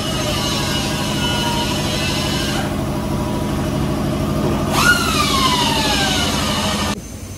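A motor running steadily with its pitch slowly falling, then rising sharply about five seconds in and falling away again over the next two seconds; it cuts off abruptly near the end.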